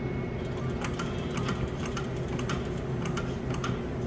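Skill-game slot machine reels spinning: a rapid run of clicking ticks, about four or five a second, over a steady low hum.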